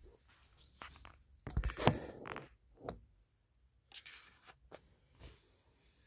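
Handling noise from a phone being picked up and propped in place: irregular rubbing, scraping and knocks close to the microphone, loudest about two seconds in.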